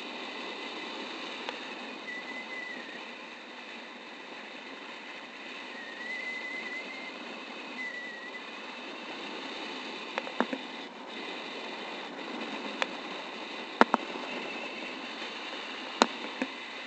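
Steady rush of air past the camera during paraglider flight, with a faint wavering high tone that comes and goes a few times in the first half. Several sharp clicks or taps in the second half.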